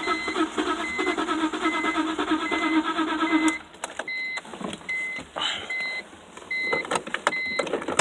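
Car engine cranking over on the starter with a rhythmic churn for about three and a half seconds and not catching: a no-start. A dashboard warning chime beeps steadily throughout, and a few clunks follow after the cranking stops.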